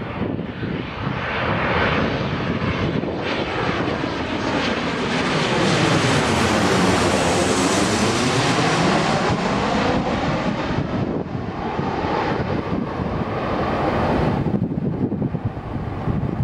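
Boeing 737-800's twin CFM56-7B turbofans as the airliner passes low overhead on final approach: a loud jet sound with a high hiss on top, loudest about seven seconds in and sweeping in pitch as it goes over. The high hiss drops away about two seconds before the end as the airliner moves off toward the runway.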